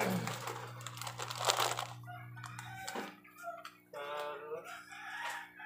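A rooster crowing about four seconds in, after a rustling noise in the first two seconds, over a steady low hum.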